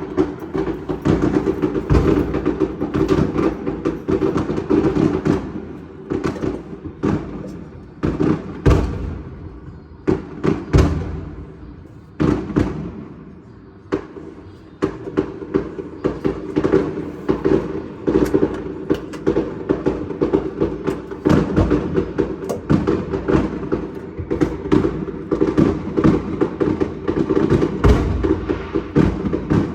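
Fireworks going off in quick succession, a dense run of bangs and crackling pops several times a second that thins out for a few seconds midway before picking up again.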